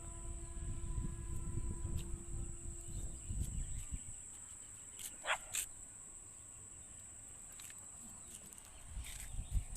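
A dog barking, a short sharp bark or two about halfway through. Low rumble in the first few seconds and a steady high-pitched whine in the background.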